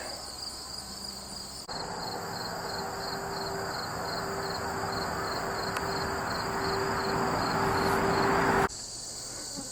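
Crickets chirping steadily. From about two seconds in, a steady whirring mechanical noise with a faint hum joins them, grows slowly louder, and stops suddenly near the end.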